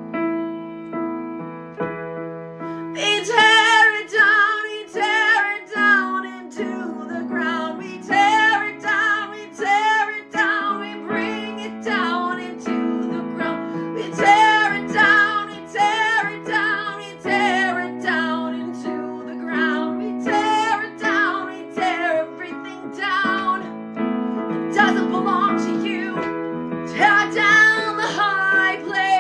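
Worship music: a woman singing long phrases with vibrato over sustained piano or keyboard chords.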